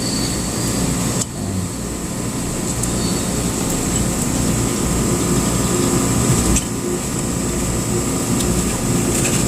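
Steady background machinery noise: a low hum with a thin high whine over it, dipping suddenly twice.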